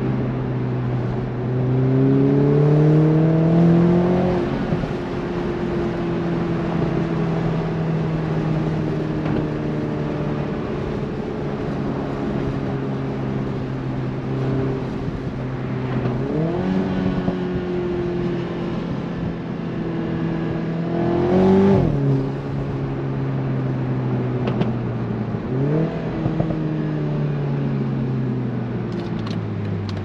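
BMW Z4 sDrive30i's turbocharged four-cylinder engine driving along over steady road noise. Its revs climb for the first few seconds and drop at a gearshift. It then runs at an even, slowly falling pitch, with three sudden rev jumps later on that each fall away again.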